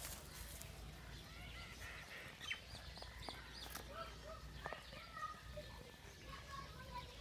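Birds chirping with short, high calls scattered through, over a steady low rumble, with a few sharp clicks in the middle.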